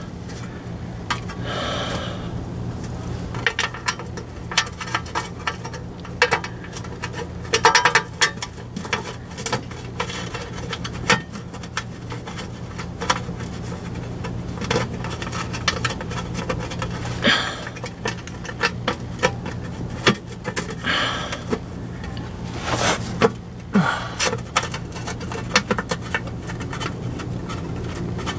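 Irregular small metallic clicks, taps and scrapes of pan bolts being threaded by hand into a Jeep 44RE automatic transmission's oil pan. A steady low hum runs underneath, with a few breaths.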